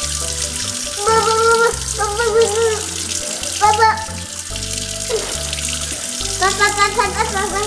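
Background music with a stepping bass line and short, wavering melodic phrases over it, above a steady hiss.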